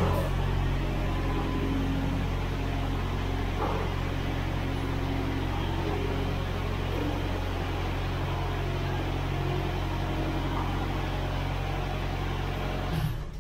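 LogBullet mini forwarder's engine running at a steady speed as the machine drives into a steel shipping container, heard inside the container. It is shut off shortly before the end.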